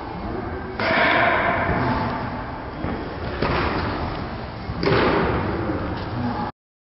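Two loud impacts of a thrown baseball smacking into a catcher's mitt, one just under a second in and one about five seconds in, each ringing on in a large indoor hall over steady low room noise.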